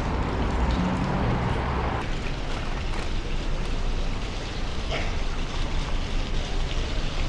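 Thermal spring fountain's water splashing into its stone basin, a steady rushing noise that cuts off abruptly about two seconds in. It is followed by steady open-air street noise with wind on the microphone.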